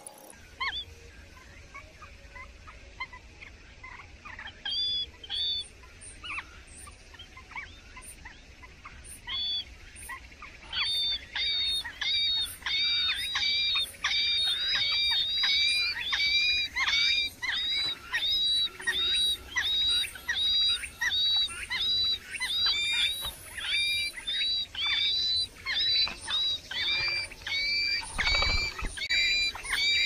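Nestling songbirds begging in the nest: short, high, down-hooked calls, scattered at first, then repeated about twice a second from around ten seconds in. A low thump near the end.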